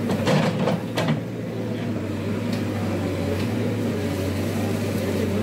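Diesel engine of a JCB backhoe loader running steadily while its bucket works, with a few short knocks in the first second.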